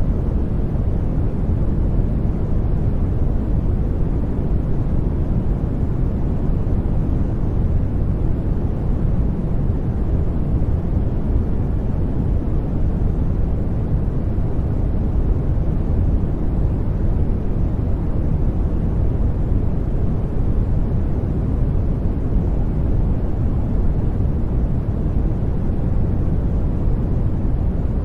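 Brown noise: a steady, deep rushing hiss with most of its weight in the bass, fading off toward the treble and never changing.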